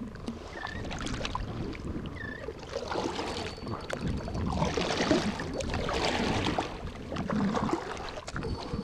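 Kayak paddle strokes splashing through shallow water, one after another, with water washing along the plastic hull of a sit-on-top fishing kayak.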